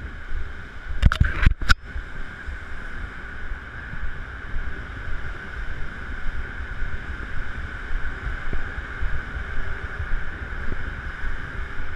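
Wind rumbling and buffeting on the camera's microphone over a steady rushing hiss, with a quick cluster of three or four sharp knocks about a second in.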